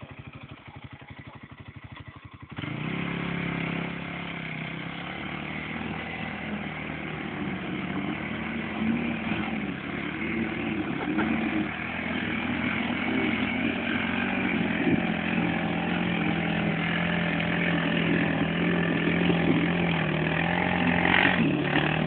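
Quad bike engine running at low revs, then about two and a half seconds in it suddenly revs up and keeps running hard under load as the quad works through deep mud, growing slowly louder.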